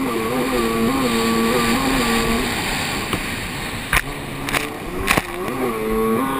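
Jet ski engine running under way, its pitch wavering up and down with the throttle, over a steady rush of wind and spray. The engine tone drops away after a couple of seconds, and three sharp knocks come in quick succession about four to five seconds in, before the engine tone returns near the end.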